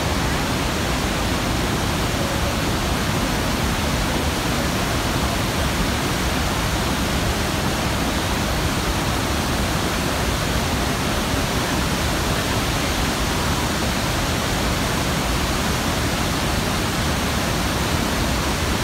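Iguaçu Falls' waterfalls and rapids, a steady, loud rush of falling water.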